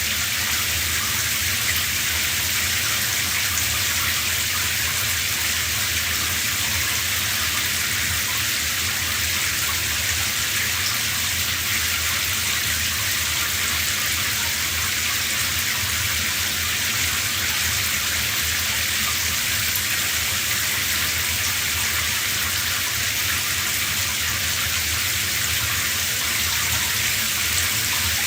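Shower running: a steady spray of water falling, an even hiss that does not change.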